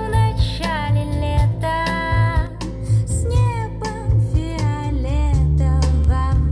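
A song with a singer over a steady bass beat, played back through vintage Soviet hi-fi loudspeakers: the Radiotehnika 35AC-1 pair, then the Amfiton 25AC-027 pair.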